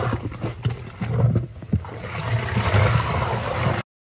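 Wet cloth being squeezed and worked by hand in dye and mud: wet squelching and sloshing with small irregular knocks, cutting off abruptly near the end.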